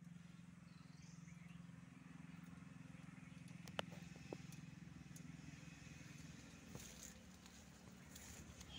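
Faint, steady low drone, like an engine running some way off, with two sharp clicks about four seconds in.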